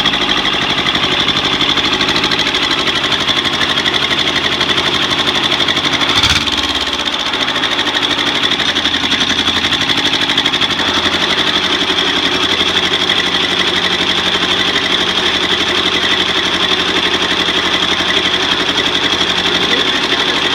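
Freshly rebuilt Kubota Z482 two-cylinder diesel running steadily on its first start-up, sounding smooth, its new piston rings not yet broken in. A single sharp knock sounds about six seconds in.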